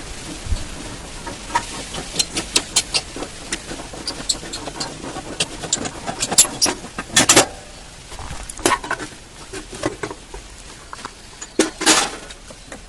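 Irregular metallic clicks and clinks of hand work on an old motorcycle, with a longer clattering rattle about seven seconds in and another near the end. No engine is running.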